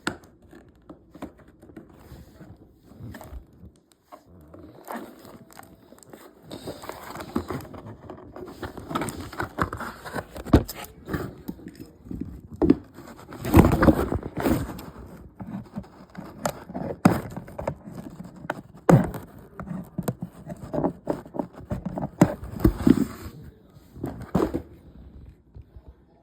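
Cardboard and plastic toy packaging being handled and scraped, with irregular crackling, scraping and sharp clicks, as someone picks at tape stuck on the box. It starts about six seconds in and is loudest about halfway through.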